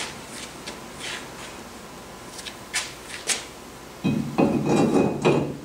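New brake rotor being fitted over the studs of a C3 Corvette's front wheel hub: a few light metallic clicks and taps, then about four seconds in a louder scraping clatter of metal on metal with a faint ringing.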